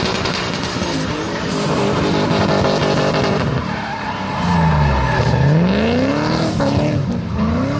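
Two BMW drift cars sliding in tandem, engines revving hard over the skid of their tyres. Engine pitch drops about four and a half seconds in and then climbs steeply again.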